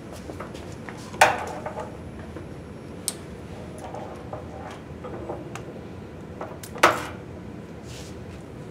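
Two sharp clacks, one about a second in and one near seven seconds, with light ticks and rattles between them: hard plastic and metal parts of the extensometer gear being handled.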